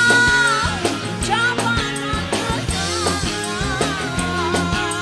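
Live dangdut koplo band playing: a woman's sung note is held and then breaks off just under a second in, followed by a wavering melody line over electric guitars, bass, keyboard and drums keeping a steady beat.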